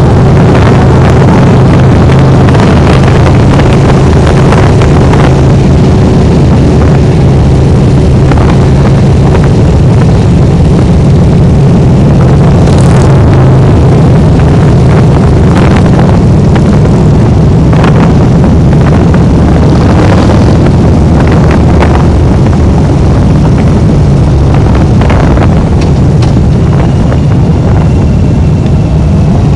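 Cruiser motorcycle engine running steadily at a slow riding pace, loud and low, heard from on the bike itself.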